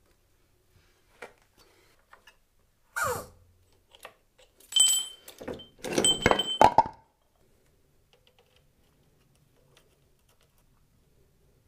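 A few small clicks, a short scrape, then a cluster of loud knocks and clatters with a brief metallic ring as a wooden block is moved about on the concrete floor beside the motorcycle.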